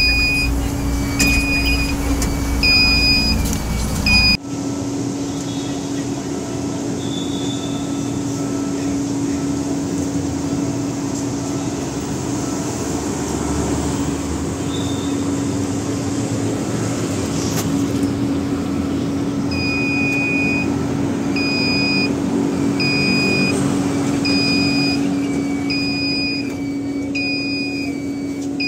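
Train door warning beeper sounding repeated short high beeps, a little more than one a second, over the train's steady low drone. The beeping stops abruptly about four seconds in, leaving only the drone, and starts again about two-thirds of the way through.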